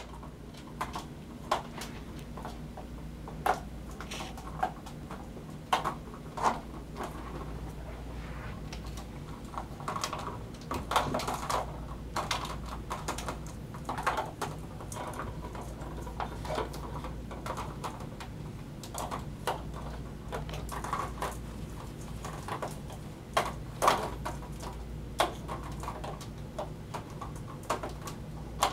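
Kittens' paws and claws on a carpeted cat tree making irregular soft taps, clicks and scuffs as they tussle, over a steady low hum.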